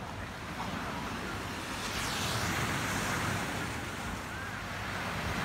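Sea waves washing on the shore in a steady rush, with wind on the microphone.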